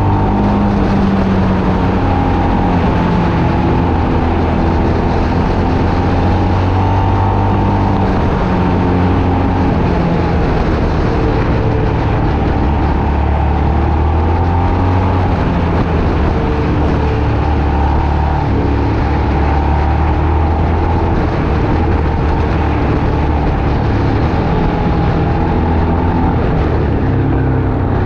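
A road vehicle's engine running under way, its pitch drifting up and down, over a steady rush of road and wind noise.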